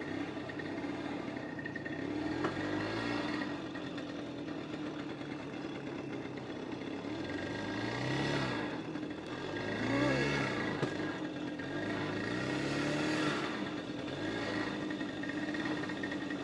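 Simson moped's two-stroke engine running, revved up and back down several times, with the revs rising and falling about eight, ten and thirteen seconds in.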